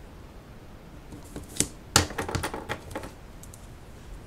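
Tabletop paper-craft handling: a scattered run of sharp clicks and taps as double-sided tape is pressed onto card and scissors are picked up, loudest about two seconds in.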